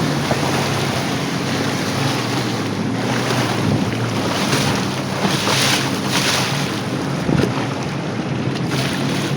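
Jet ski engine running at a steady speed, with wind buffeting the microphone and the rush of water. The hiss swells briefly about five to six seconds in.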